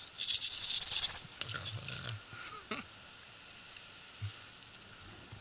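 A Rat-L-Trap lipless crankbait's internal rattles and treble hooks jangle loudly as a tiny hardhead catfish hooked on it thrashes in the air. The rattling lasts about two seconds and then stops.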